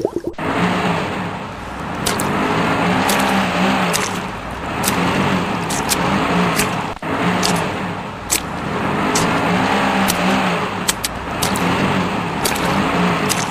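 Motor vehicle engine sound effect, revving up and down in swells about every two seconds and repeating as a loop, laid over the picture rather than coming from the stationary toy tractor.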